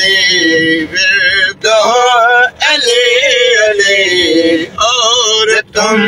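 A man singing a devotional qaseeda in praise of Ali, drawing out long wavering melismatic notes with several short breaks.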